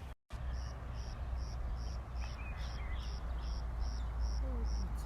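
Insect chirping in a steady, even rhythm, a high chirp about twice a second, over a low steady rumble.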